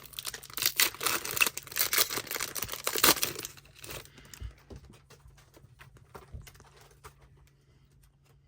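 Foil wrapper of a Panini Prizm trading-card pack being torn open and crinkled for about three and a half seconds, followed by fainter rustles and clicks as the cards are handled.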